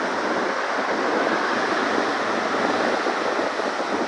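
Ocean surf washing up the beach: a steady rush of breaking waves.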